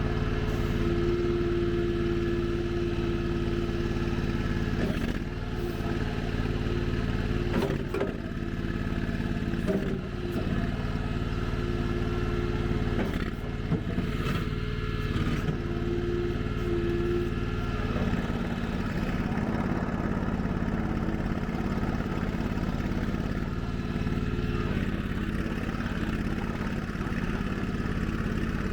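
Skid steer loader's Honda GX690 V-twin gas engine running steadily as the machine works, with a higher whine that comes and goes and a few sharp clanks in the first half. The engine note shifts a little past the midpoint.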